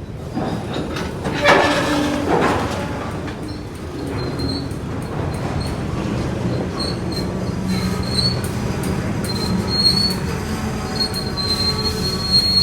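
A train rolling past with wheel flange squeal: a thin, high screech that comes and goes, then grows louder and steadier near the end, over a steady low rumble.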